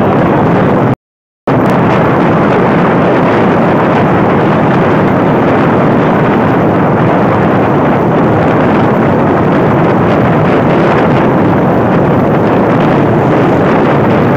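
Loud, steady rush of wind buffeting the microphone while moving along a road at speed, with no engine note standing out. It cuts to silence for about half a second, about a second in.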